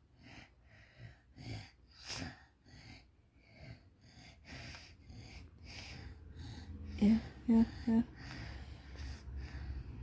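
A toddler with a cough and cold breathing noisily through a congested nose, a short snuffly, wheezy breath about twice a second.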